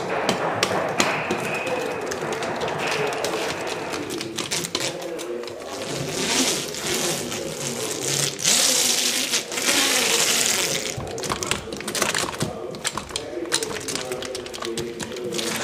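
Resin roller working wet glass-fibre mat against a boat mould, a run of frequent small clicks with two longer bursts of hiss in the middle.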